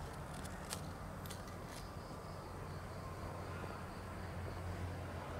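Faint outdoor background: a steady low hum with a thin, high insect buzz and a few light clicks in the first two seconds. The hum grows louder near the end.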